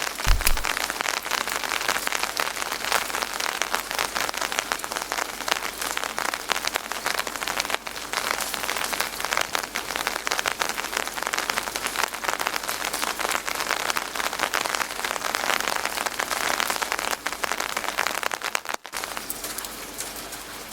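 Steady rain falling, a dense patter of many drops, with a very brief break near the end.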